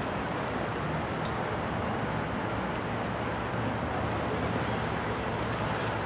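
Steady harbour ambience: a low engine hum from boat traffic under a constant rush of wind on the microphone.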